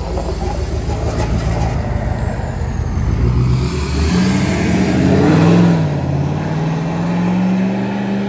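Ford F-350 Super Duty's Power Stroke turbo-diesel V8 pulling away and accelerating. The engine note climbs, drops briefly about six seconds in as it changes gear, then climbs again as the truck drives off.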